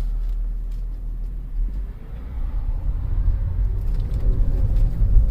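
Cabin noise of a 2007 BMW X3 3.0si being driven: its straight-six engine and the road make a steady low rumble, which grows a little louder after about two seconds. The engine runs without the rattle it had before the repair.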